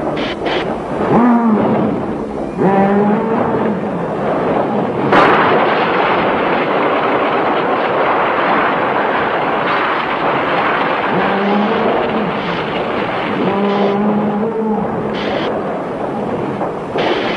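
Bull-like giant monster's roars (a tokusatsu choju sound effect): several low, drawn-out bellowing calls near the start and again late, over a steady noisy din of destruction. A sharp crash comes about five seconds in.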